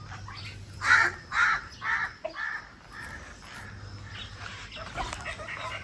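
A bird giving a run of four or five loud, harsh calls about half a second apart, each fainter than the last, followed near the end by quieter quick calls.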